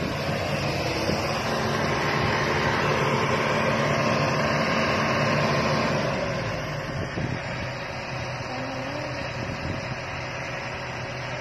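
Kobelco SK200 tracked excavator's diesel engine running steadily with a wide, even machine noise over it; the running gets somewhat quieter about six seconds in.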